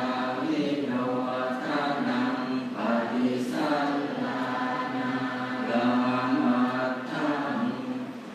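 Thai Buddhist monks chanting Pali together in unison on a near-level tone, during the morning chanting service (tham wat chao), in short phrases with a brief pause for breath near the end.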